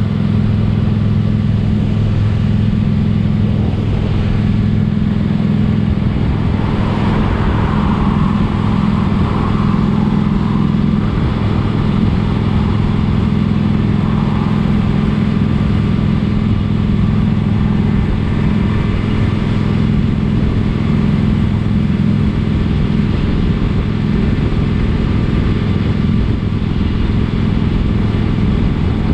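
Motorcycle engine running steadily at an even pitch, with no revving up or down.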